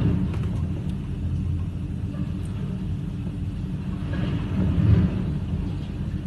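Squall-force wind buffeting the microphone as a steady low rumble, swelling in a stronger gust about five seconds in.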